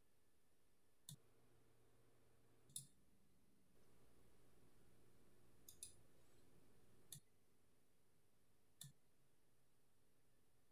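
Near silence, broken by a handful of faint computer-mouse clicks spaced a second or two apart, with a faint low hum in the middle stretch.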